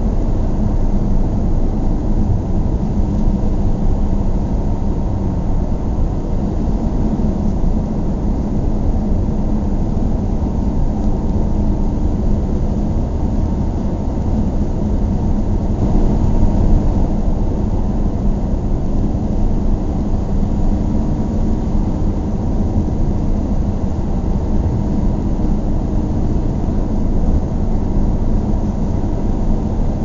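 Car driving at a steady pace: a constant drone of engine and tyre-on-road noise.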